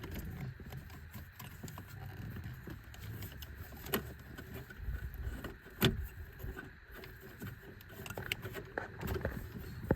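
Scattered clicks and knocks of plastic, with rustling, from hands working behind a truck's dashboard to pull electrical connectors apart. The sharpest click comes about six seconds in.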